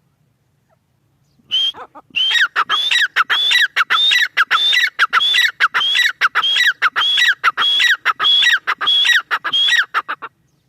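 Grey francolin calling: a loud, harsh note with gliding pitch, repeated rapidly at about two to three a second. It starts about a second and a half in and stops just before the end.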